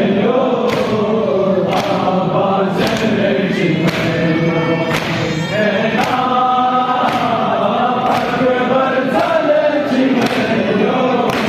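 A group of men chanting a noha (devotional lament) in unison, with sharp hand slaps on chests (matam) about once a second over the voices.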